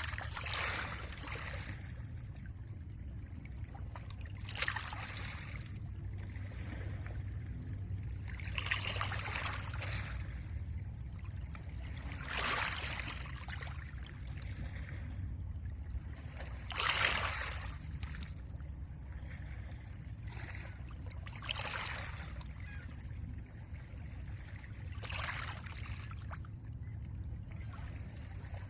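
Small lake waves breaking on a pebble beach, each one a washing hiss that swells and fades about every four seconds, over a steady low rumble of wind.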